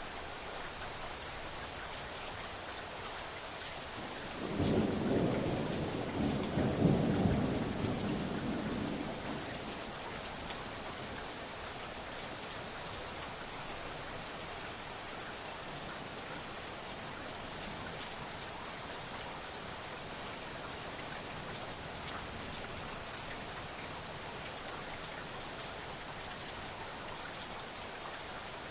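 Thunderstorm: steady hiss of rain, with a roll of thunder rumbling for about five seconds, starting about four seconds in.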